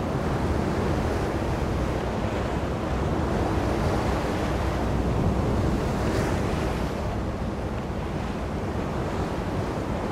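Steady rush of wind and choppy sea water at sea, with wind buffeting the microphone.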